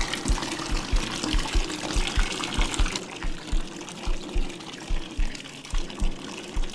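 Running, trickling water over a quick train of low thuds, about four a second, that slows and grows irregular in the second half. The higher part of the water's hiss drops away about three seconds in.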